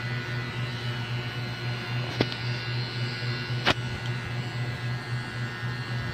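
Steady low electrical hum with faint steady whines above it, and two short clicks, about two and three and a half seconds in.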